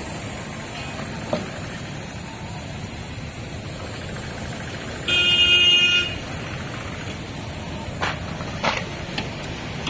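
Roadside traffic noise, with a vehicle horn honking once for about a second midway. A few short knocks come near the start and near the end.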